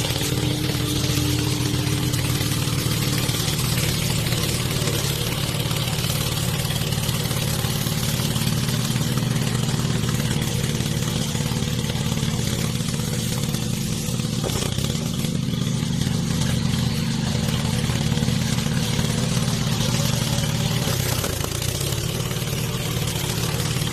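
Remote-controlled lawn mower's engine running steadily, its pitch shifting slightly a few times.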